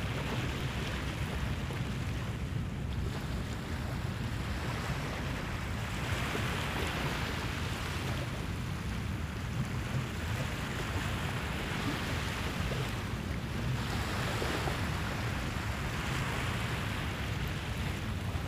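Small waves washing onto a sandy beach, their hiss swelling and fading every few seconds, over a steady low rumble of wind on the microphone.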